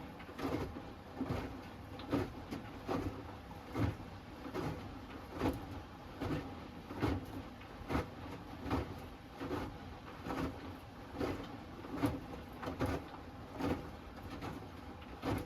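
Hoover Axi 10 kg front-loading washing machine in its wash tumble: the drum turns and the wet laundry drops with a soft, regular thud about every 0.8 seconds.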